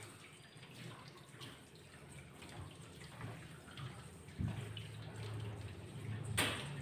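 Water from a shower hose splashing over a wet dog and onto a stainless steel grooming tub as the dog is scrubbed by hand. A low hum sets in about four and a half seconds in, and a sharp knock comes near the end.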